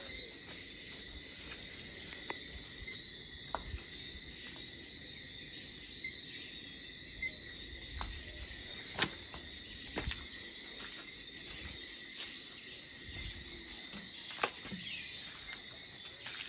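Steady, high-pitched chorus of insects, heard as two continuous tones, with a scattering of sharp ticks and knocks over it.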